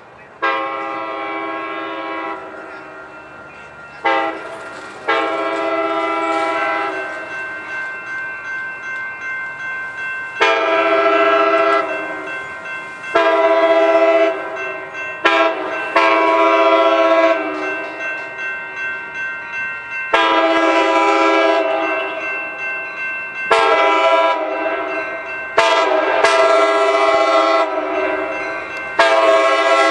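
Amtrak passenger train's multi-chime air horn sounding a long series of blasts, some short and some held for several seconds, as the train runs along tracks in the street, a warning for the street crossings.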